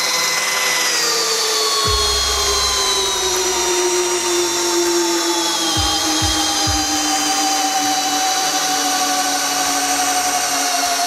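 Makita 40V HP001GZ cordless hammer drill running continuously under load, driving a 100 cm long screw into softwood. Its motor whine falls slowly in pitch as the screw goes deeper and the load grows, with a few dull knocks about two and six seconds in.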